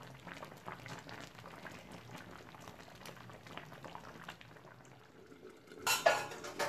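Jackfruit curry in coconut milk simmering gently in a clay pot: a faint, continuous bubbling and popping. About six seconds in, a short, loud clatter as the clay lid is set on the clay pot.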